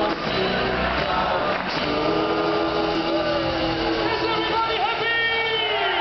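Live pop-rock band music from a three-piece band: electric guitar, electric bass and drums with a male lead voice singing. In the second half the voice holds long notes, which slide down at the end.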